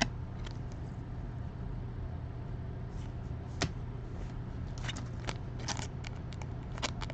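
Baseball cards being handled and flipped through by hand: scattered short flicks and clicks, coming more often in the second half, over a steady low hum.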